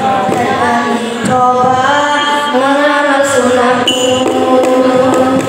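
Boys' voices singing a nasyid together through microphones, a slow melody with long held notes, with a few light drum taps.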